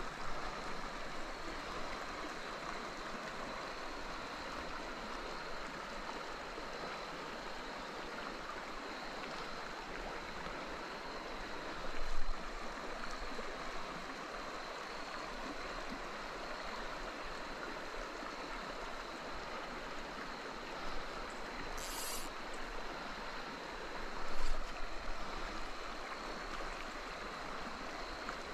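Steady rushing of a trout stream's flowing water, with two brief louder sounds partway through.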